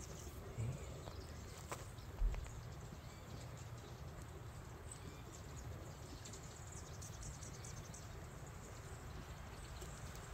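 Quiet outdoor background with a steady low rumble, a few faint clicks and a single dull thump about two seconds in.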